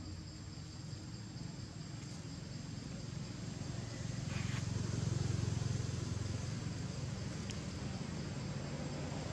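Low rumble of a motor vehicle's engine, growing louder about four seconds in and staying up, with a thin steady high whine throughout.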